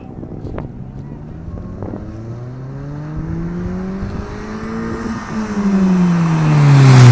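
Toyota Corolla's exhaust, fitted with an aftermarket HKS muffler, under acceleration: the engine note rises in pitch for about five seconds, then falls while growing louder near the end.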